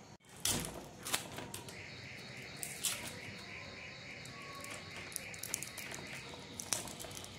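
Small clicks, scrapes and rustles of fingers working insulating tape off a small ferrite transformer from a home theater's power supply. A faint, wavering high chirping runs from about two seconds in until near the end.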